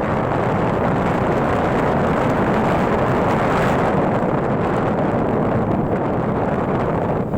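Steady rush of wind on the microphone over the running of a vehicle on the move along a road.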